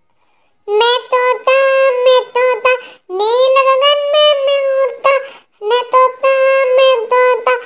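A high, child-like voice singing a Hindi nursery rhyme in three sung phrases with held notes and short breaks between them, starting after a brief silence.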